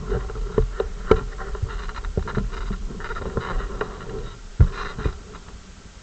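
ATV engine running with a steady hum, overlaid by irregular sharp knocks and rattles, several a second, louder about a second in and again near the end.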